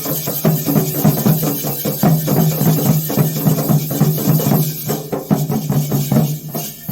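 Drum-led music: fast, dense drum strokes, several a second, over a steady low note.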